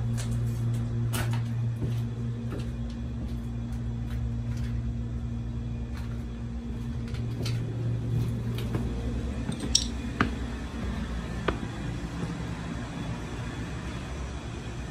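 Outdoor air-conditioner condenser unit running with a steady low hum, over footsteps and a few sharp clicks about ten seconds in.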